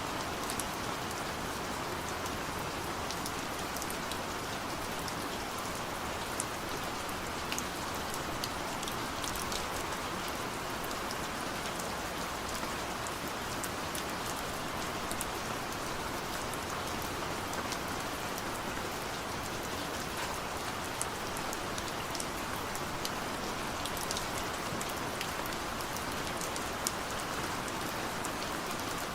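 Steady rain falling, an even hiss with many small drop ticks spattering on a surface.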